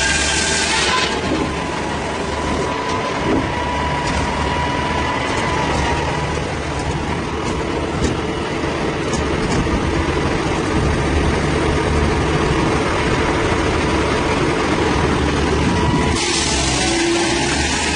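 An engine running steadily. A harsh hissing noise over it stops about a second in and comes back near the end.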